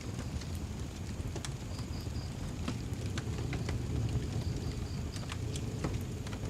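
Wood fire burning: irregular crackles and pops over a steady low rumble. A faint high chirping sounds in two brief runs.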